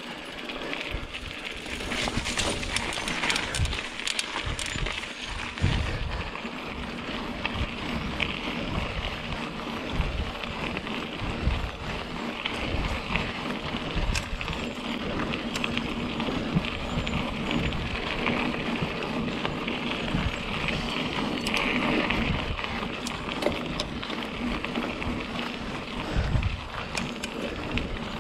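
Mountain bike riding along a dirt singletrack: tyres rolling over the ground, with frequent short knocks and rattles from the bike throughout.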